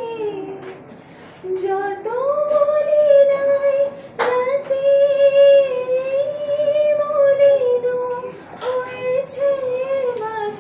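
A young woman singing solo and unaccompanied, holding long notes with slow glides between them, with a brief pause about a second in and a falling note near the end.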